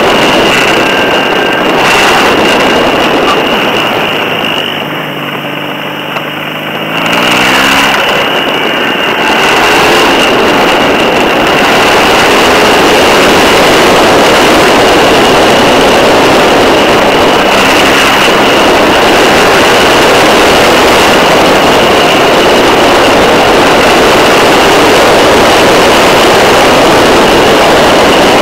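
Motorcycle riding at road speed, a BMW R 1200 GS Adventure's boxer twin, heard from a camera mounted low beside the rear wheel: mostly steady wind and tyre rush, with a steady high whine under it. About five seconds in, the rush eases and the engine note comes through rising, before the rush builds back up.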